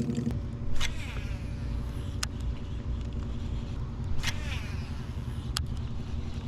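Two casts with a baitcasting rod and reel: each begins with a sudden swish and a falling whir as line runs off the spool, and ends with a sharp click about a second and a half later. A steady low rumble runs underneath.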